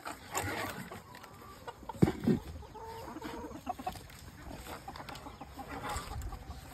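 Chickens clucking with short scattered calls, with two dull thuds about two seconds in.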